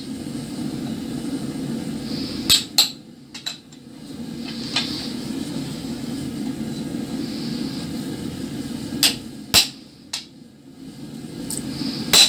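Hammer blows on a chisel held against a red-hot iron bar on an anvil, cutting notches into the iron: sharp metallic strikes, spaced out and several in quick pairs, over a steady low hum.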